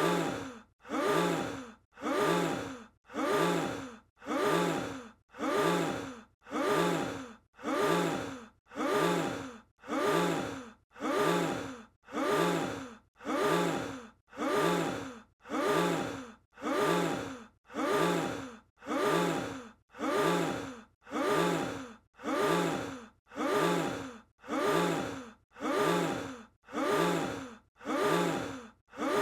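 A short voice-like sound effect that starts sharply, falls in pitch and fades. It is looped about twenty times at an even pace.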